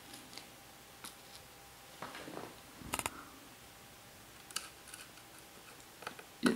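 Sparse small clicks and taps of a screwdriver tip and tiny case screws being handled on a laptop's bottom case. The sharpest click comes about three seconds in.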